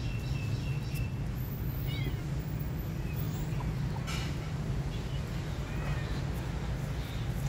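Puppy giving a few short, high-pitched whimpers over a steady low background hum.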